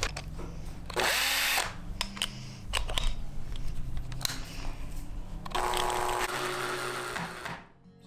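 Cordless drill-driver driving screws into the wooden frame of a chicken coop: a short run of the motor about a second in and a longer run with a steady whine from about five and a half seconds, stopping just before the end. Clicks and knocks of handling the drill and parts between the two runs.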